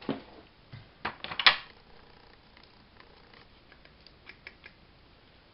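Small craft items being handled and set down on a desk: a few sharp knocks and taps, the loudest about a second and a half in, then faint light ticks near the end.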